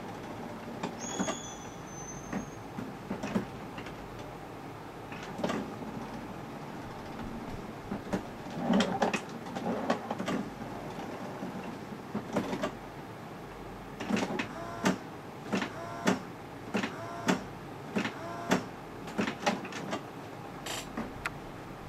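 HP Officejet Pro 8100 inkjet printer's mechanism working: a series of clicks and knocks with short motor whirs, coming thickest in the second half, where the whirs repeat about every half second.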